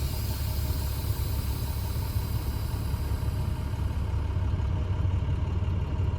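Diesel engine of a 2013 International Durastar truck idling steadily, a continuous low rumble.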